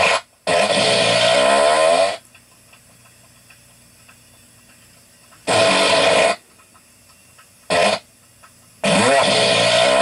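Fart sounds: a long rasping fart whose pitch wavers and falls, a shorter one a few seconds later, a brief blip, and another long one near the end.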